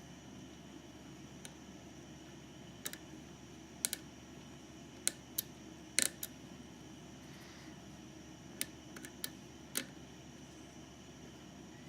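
Scattered small, sharp clicks of a lock pick and tension wrench working the pins inside a GeGe eAP2000 5-pin pin-tumbler lock, irregular and spaced out, with the loudest cluster about six seconds in.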